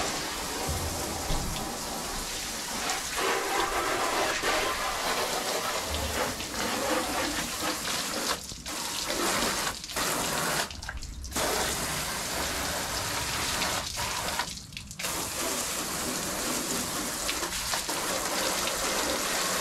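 Water spraying from a garden hose's trigger nozzle onto a van's windows and bodywork: a steady rushing spray that cuts out briefly a few times.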